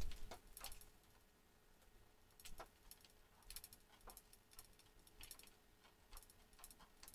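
Rubber grommet being worked into a hole in the model jet's fuselage skin with a bent screwdriver: faint, irregular small clicks and ticks.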